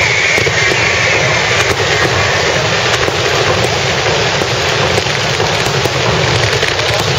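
Fireworks going off in a dense, continuous barrage: many sharp bangs and crackles run together over a steady wash of noise.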